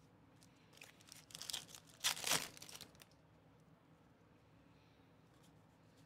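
Foil wrapper of a baseball card pack being torn open and crinkled, starting about a second in and loudest just after two seconds, done by about three seconds. A few faint ticks of the cards being handled follow.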